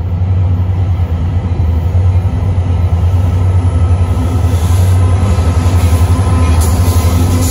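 Diesel freight locomotives approaching and passing close by, led by EMD units: a steady low engine rumble that grows slightly louder as the locomotives draw near.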